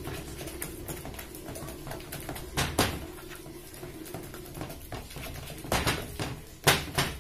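Ripe bananas being pounded and mashed by hand in a plastic bowl: irregular knocks and scrapes of the utensil against the bowl, with a louder knock about three seconds in and several more near the end.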